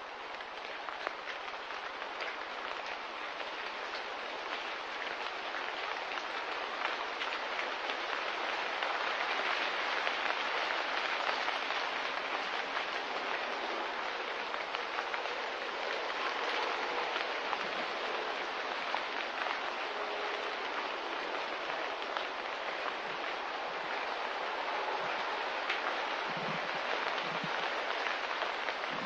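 Steady rushing hiss of a foggy-day nature ambience, with a fine patter of small ticks running through it. It swells gradually over the first ten seconds, then holds even.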